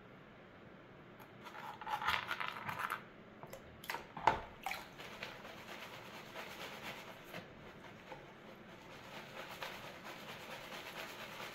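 Wet gravel and sand swishing and grating in a plastic gold pan as it is shaken and swirled in water, with a rough burst of rattling about two seconds in and a single knock around four seconds.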